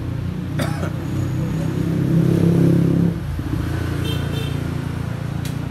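Street traffic: a road vehicle's engine running close by, swelling about two seconds in and dropping off sharply after about three seconds. There are sharp clicks near the start and near the end.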